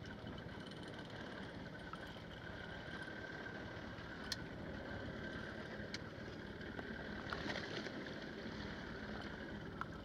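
Steady noise of a small fishing boat at sea: an engine running low under water slapping at the hull, with two sharp clicks about a second and a half apart near the middle.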